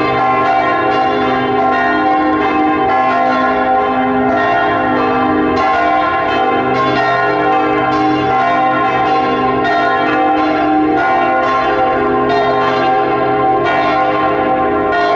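Several church bells ringing together in a continuous peal: repeated strikes over a steady, dense wash of overlapping bell tones.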